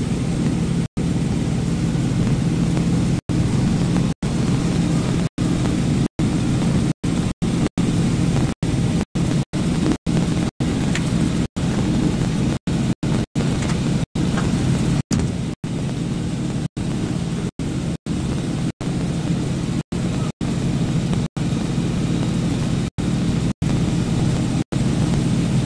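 Truck engine running steadily at low speed, a low drone heard from inside the cab, broken by frequent split-second gaps where the sound drops out.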